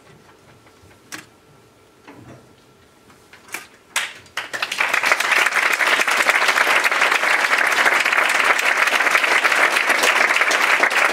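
A quiet room with a few isolated knocks, then an audience breaks into applause about four seconds in and keeps clapping steadily.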